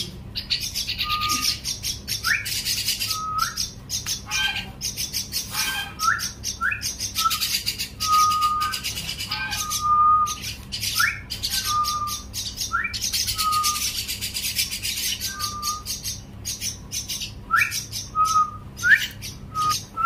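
Young myna chicks begging while being hand-fed: short repeated chirps, some held level and some sweeping quickly upward, about one a second, over a continuous high-pitched hiss.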